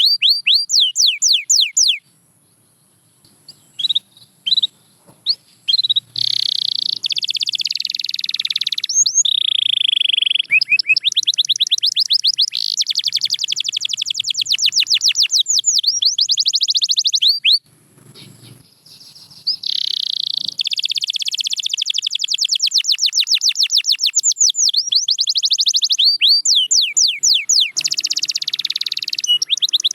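Canary singing long, fast trills of rapidly repeated sweeping notes, with tours rolling into one another. It stops briefly twice, near the start and about midway.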